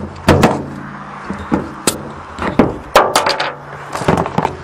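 Ford diesel truck engine idling steadily, with about half a dozen sharp clicks and knocks over it, louder than the engine.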